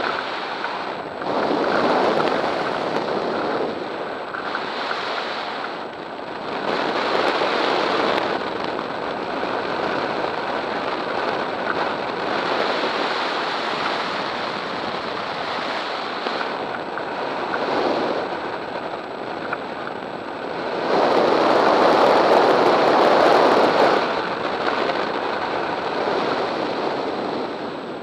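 Wind rushing over the microphone of a camera mounted on a hang glider in flight: a steady rush that swells and fades several times, loudest for a few seconds about three-quarters of the way through.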